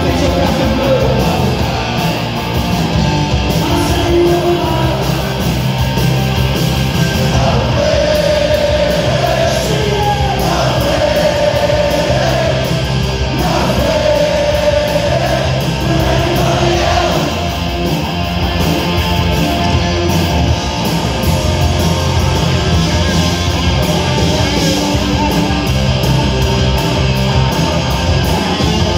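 Punk rock band playing live and loud: distorted electric guitar, bass and drums with a shouted lead vocal.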